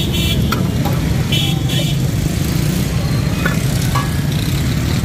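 Steady low engine rumble of street traffic, with a few brief high-pitched sounds over it.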